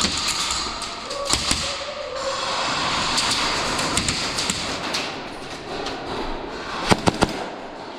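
Airsoft guns firing: a couple of sharp shots about a second and a half in, then a quick volley of three near the end, over a steady background of arena noise.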